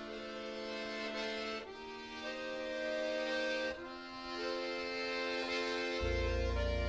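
Background music in a traditional Celtic style: long held chords that change about every two seconds, with a deep bass coming in near the end.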